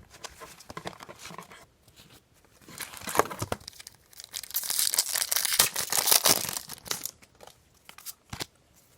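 A trading-card pack's wrapper being torn open and crinkled. It starts with light rustling, grows loudest in the middle with dense crackling, and ends with a few scattered clicks.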